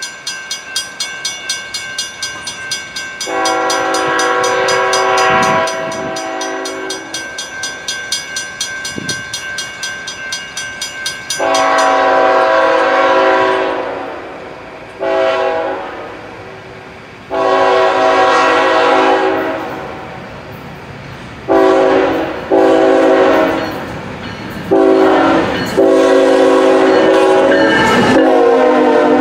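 Grade-crossing bell ringing in rapid, even strokes until about twelve seconds in, while a CSX freight locomotive's multi-chime air horn sounds a series of long and short crossing blasts, growing louder as the train nears. Near the end the locomotives reach the crossing with a rush of engine and wheel noise.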